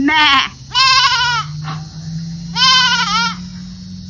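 A goat bleating three times, each a wavering call of half a second to a second.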